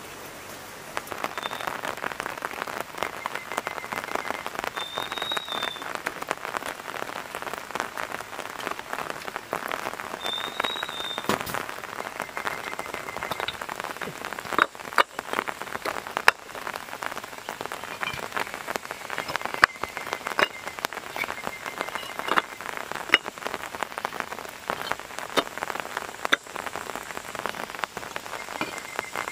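Rain falling steadily, a dense patter of drops that sets in about a second in, with sharper, louder drop hits now and then.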